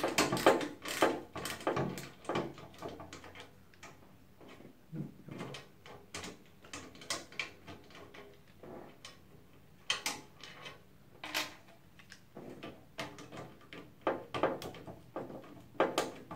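Irregular clicks, knocks and rattles of a Thermaltake Core V1 computer case being taken apart by hand, its plastic and steel parts handled and pried with a screwdriver. Busiest at the start, around ten seconds in and near the end, with quieter handling between.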